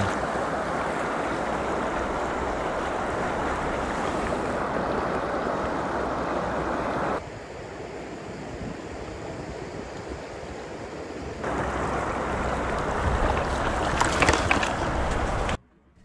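Mountain stream water rushing over rocks in a steady rush. It drops to a softer rush for a few seconds midway, then returns at full strength.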